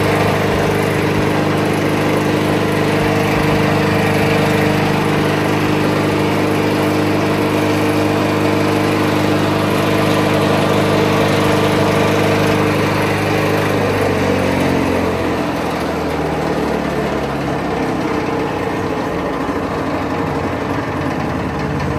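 One motor driving a 3-in-1 chaff cutter and atta chakki (flour mill), running with a steady hum and clatter. About two-thirds of the way through, its pitch slides down as the machine slows, and the running noise carries on a little quieter.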